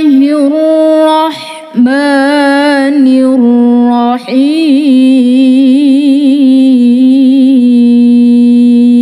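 A woman's melodic Qur'an recitation (tilawah), sung solo without accompaniment into a microphone: long held notes with wavering ornaments, broken by two short breaths, then one long steady note near the end.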